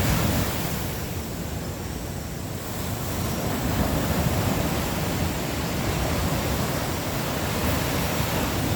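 Sea surf washing on the beach, a steady rushing that eases for a moment and then swells again.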